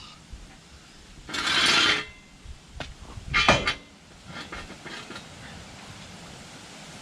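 A short scraping rush, then a sharp metallic clank with brief ringing, followed by a few lighter clicks: metal tools and parts being handled during suspension work.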